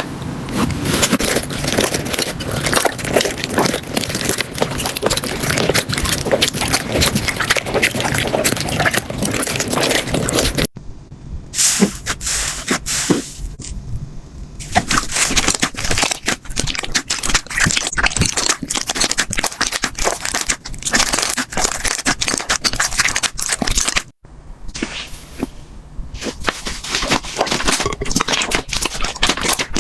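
Slime being squished and pressed by hand, giving a dense run of small crackling pops and clicks. The sound breaks off abruptly twice and starts again with a new texture.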